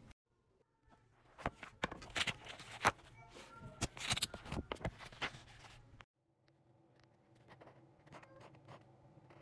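Hardcover notebook handled on a wooden table, its cover and pages opened and smoothed, with crisp clicks and paper rustles. After a short break, a felt-tip marker scratches faintly on the paper in short drawing strokes.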